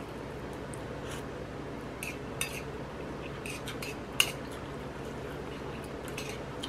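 Metal chopsticks and a spoon clicking and scraping against a ceramic plate as noodles are picked up, a few light scattered clinks with the sharpest about four seconds in, over a steady low hum.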